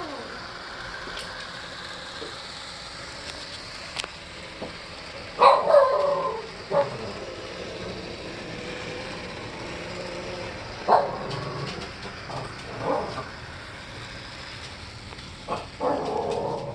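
A dog barking in short bursts, a pair about five and a half seconds in (the loudest), then single barks spread out after. Under it runs a steady faint running noise, fitting the Z scale model locomotive moving on its track.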